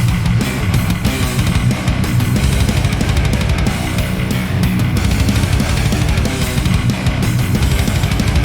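Heavy, high-gain distorted rhythm guitar played through a Diezel VH4 amp-sim plugin, backed by drums and bass in a continuous heavy metal groove.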